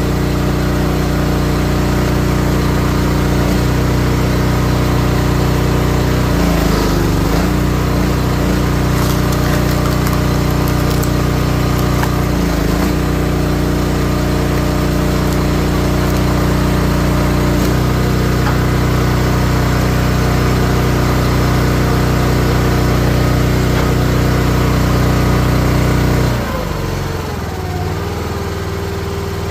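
Small gas engine of a 28-ton log splitter running steadily, its note dipping briefly a few times. Near the end the engine speed drops and it runs on more quietly.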